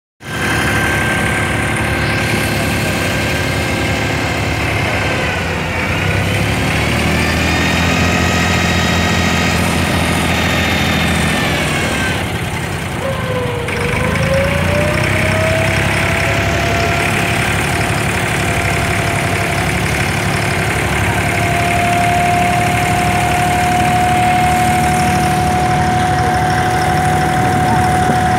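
Boat engine of an abra (Dubai Creek water taxi) running steadily, its pitch dipping and climbing back twice in the first half as the engine speed changes, then holding one steady drone with a whine on top.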